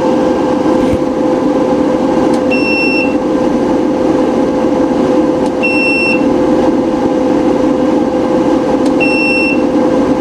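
Cooling fans of a PowMr 5K low-frequency solar inverter running steadily with a hum, switched on because the solar charge current is above 60 amps. A short, high electronic beep sounds three times, about every three seconds.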